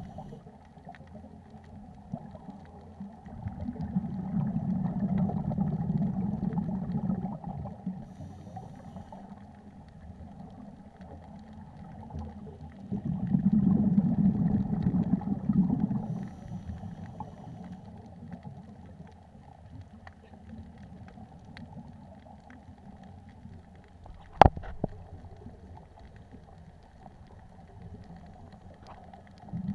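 Scuba exhalation bubbles from a regulator, heard underwater through a waterproof camera housing: a low bubbling rumble that swells twice for about four seconds, some nine seconds apart, over a steady muffled underwater hum. One sharp click stands out about two-thirds of the way through.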